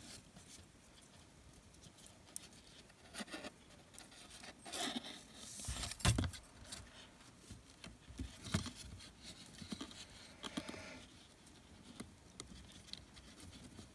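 Braided Venetian blind cord sliding and rubbing through the loops of a monkey's fist knot as it is pulled tight by hand: soft, scattered rustles and scrapes, the loudest about six seconds in.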